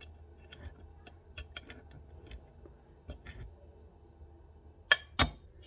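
Light, scattered clicks and taps of a tool and small metal parts against a 6R80 transmission valve body, with two sharper clicks near the end.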